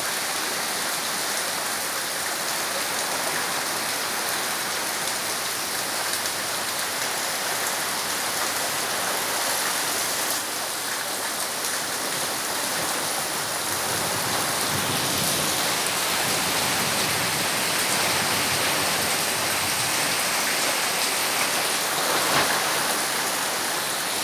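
Heavy rain falling steadily on puddled ground and leafy trees, a little louder from about halfway through.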